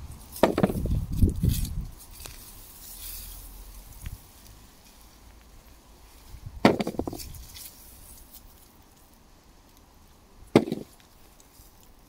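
Hands rummaging through soil and straw mulch and pulling up potato plants: a burst of rustling and scraping at the start, then two sharp knocks, one about halfway and one near the end.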